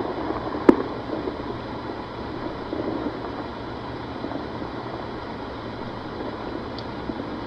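Steady outdoor background noise with a single sharp crack under a second in, a distant gunshot, and a faint tick near the end.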